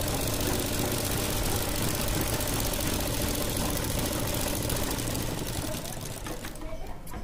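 Electric sewing machine running steadily as it stitches a seam, then slowing and stopping near the end.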